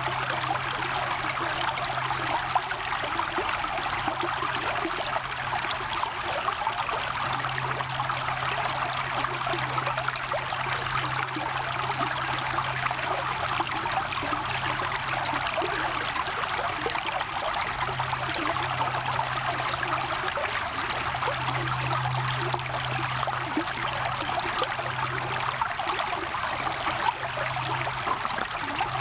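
Small ice-edged stream flowing over rocks in a steady, unbroken babble and trickle, with a low hum underneath that swells and fades.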